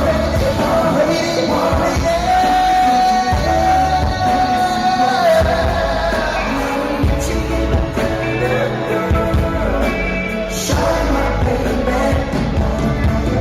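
Live pop concert music with singing, including a long held vocal note.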